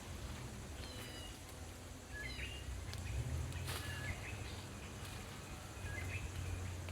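Birds chirping in short, scattered high calls over a steady low rumble, with one sharp click a little past halfway.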